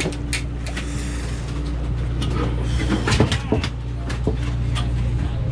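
Steady low hum of a party boat's machinery running, with scattered sharp knocks and a short clatter about three seconds in.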